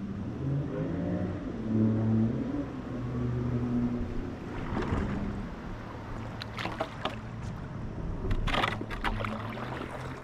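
An inflatable kayak's hull grinding up onto a concrete boat ramp, with a low wavering scrape at first, then rougher scraping and a few sharp knocks later on.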